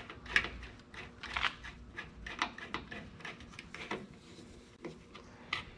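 Irregular small clicks and scrapes of a screwdriver and fingers working the mounting screws and nuts of a motorcycle's chrome front fender tip light.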